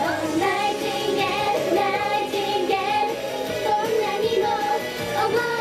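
Young female voices singing an upbeat J-pop idol song together into handheld microphones over a recorded backing track with a steady beat, amplified through a stage PA.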